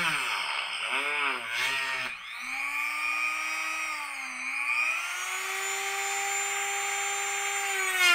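Dremel rotary tool on a flex-shaft extension, with a 1-inch cutoff wheel, cutting 1/8-inch smoked plexiglass. Its whine sags and recovers in pitch several times over the first two seconds as the wheel bites into the plastic, then runs steady for the rest.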